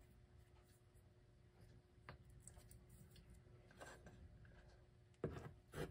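Near silence with faint small clicks and taps from hands working a tube of rubber and gasket adhesive, laying a thin bead around a clock's gear ring on a wooden board. Near the end there are two brief, louder rustles.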